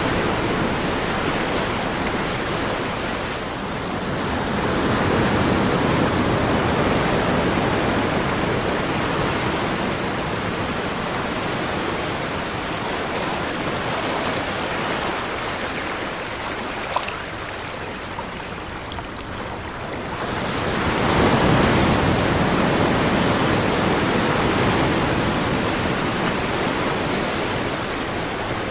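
Ocean surf: a continuous wash of breaking waves that swells and ebbs, with a quieter lull followed by a big surge about two-thirds through. A single faint click stands out shortly before the surge.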